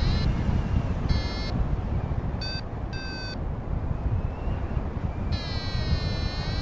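A flight variometer beeping: a short tone about a second in, two quicker higher beeps around the third second, then a longer tone that wavers in pitch near the end. Under it, steady wind rushing over the microphone from the airflow in flight.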